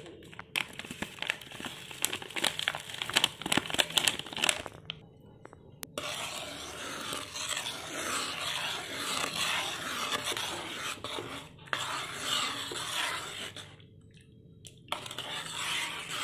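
Plastic soup-mix packet crinkling as the last of the powdered soup is shaken out into a pan of water, then a plastic spatula stirring and scraping around the pan, stopping briefly near the end.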